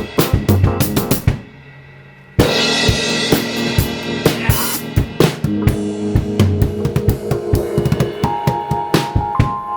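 A live band playing, led by a drum kit with kick, snare and cymbals over keyboard. About a second in the drums stop and only a quieter held sound remains. About two and a half seconds in the full band comes back in with a crash.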